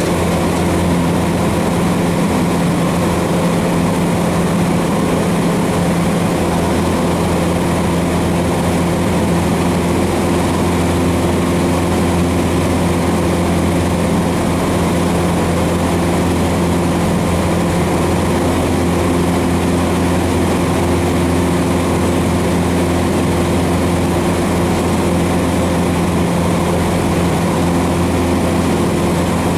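Cessna 150's Continental O-200 four-cylinder engine and propeller droning steadily in flight, heard from inside the cabin.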